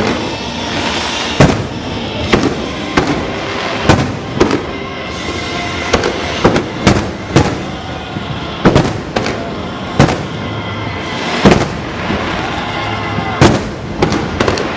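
Aerial fireworks bursting: about fifteen sharp bangs at an uneven pace, some coming in quick pairs, over a steady background din.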